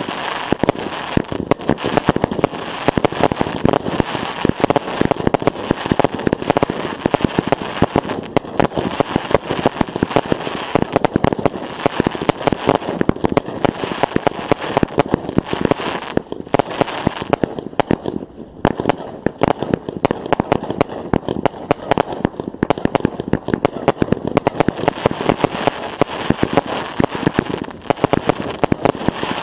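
Consumer fireworks going off in a dense, continuous barrage of sharp pops and crackling, many reports a second, with a short lull about two-thirds of the way through.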